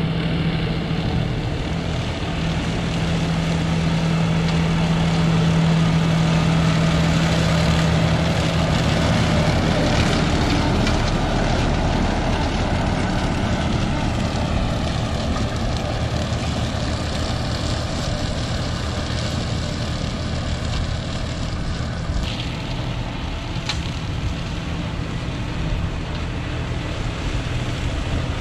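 Vehicle engine running steadily, a continuous low-pitched drone.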